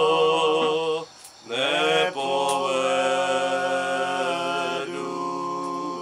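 Two men singing a Slovak folk song a cappella in long held notes with vibrato. The first note breaks off about a second in, and after a short gap a new note slides up and is held through the rest.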